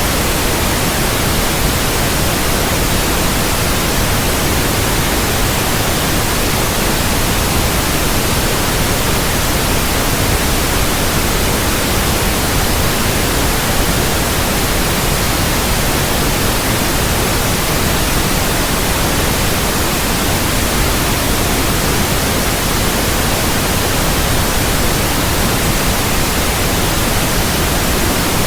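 Steady, unchanging white noise: an even hiss spread across all pitches from deep to high, with no change in level.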